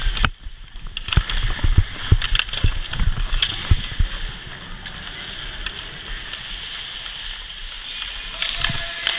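Hockey skates scraping over rink ice and a stick handling the puck, over a steady hiss. A run of sharp knocks in the first four seconds then settles to the steady scraping hiss.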